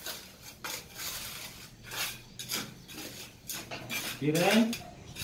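Gritty sand bedding mix being spread and scraped across a concrete stair step by hand and steel trowel, in a run of irregular scraping strokes.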